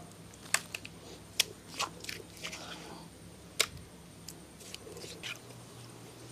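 Scattered clicks and short scrapes as freshly ground masala paste is scooped by hand off a stone grinder into a steel bowl, over a faint steady hum.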